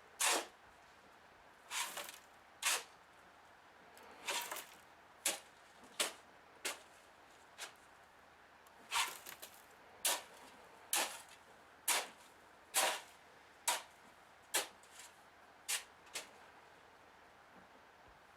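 Shovel scooping sand and tipping it into a wheelbarrow, a short scrape about once a second.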